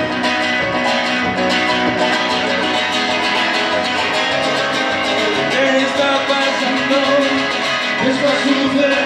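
Live worship song: a strummed acoustic guitar with a Roland BK-3 keyboard, and a voice singing.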